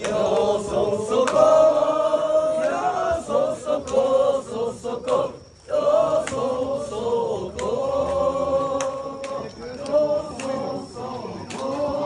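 A large group of men chanting together in long held calls, with a short break about five and a half seconds in.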